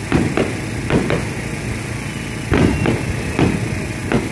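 Aerial fireworks bursting in a rapid series of bangs, about seven in four seconds with a short lull in the middle, each followed by a low rumbling echo.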